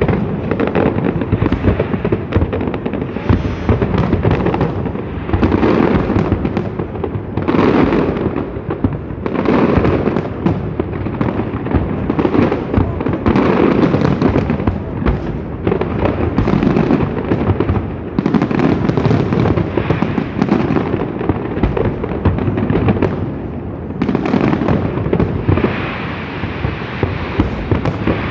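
A fireworks display: a dense, continuous barrage of shells bursting, booming and crackling.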